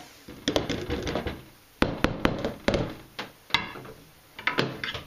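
About ten sharp knocks and clicks, irregularly spaced, from handling a Kenwood stick blender and its plastic beaker: the blender's metal shaft is taken out of the beaker and set down on a steel worktop.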